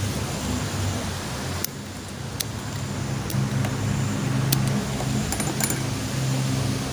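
Light metallic clicks and clinks of bonsai wire and wiring pliers as a ficus branch is wired, a few scattered clicks, over a steady low motor hum.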